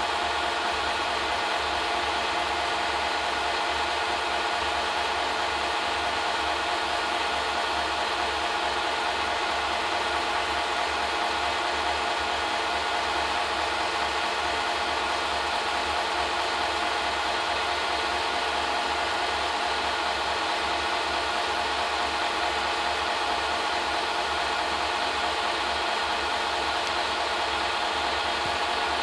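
Steady mechanical whir and hum of a film projector running, with a fast, even flutter underneath and no change in level.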